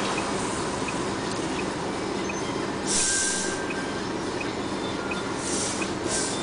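Vehicle running in slow, stop-and-go traffic behind a semi-trailer truck: a steady low drone, with short high hisses about three seconds in and twice near the end, and a faint regular ticking about every 0.7 seconds.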